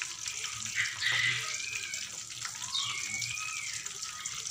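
Hot oil sizzling and bubbling in a wok as chopped chilies, shallots, garlic and tomato fry: a steady hiss, a little louder about a second in.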